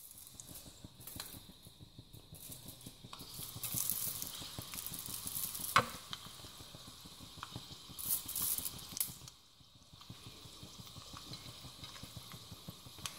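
Mustard seeds and urad dal frying in hot oil for a tempering (tadka), sizzling with scattered pops and crackles as the mustard seeds splutter. One sharp pop about six seconds in.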